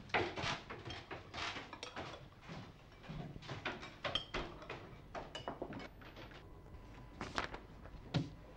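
Cutlery and crockery clinking and clattering at a dinner table: a string of short knocks and clinks, a few of them ringing briefly, as spoons and plates are handled.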